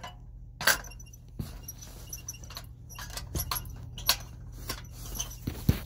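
A frying pan being set down and shifted on the metal grate of a portable gas stove: scattered clinks and knocks, the sharpest near the end, over a low steady hum.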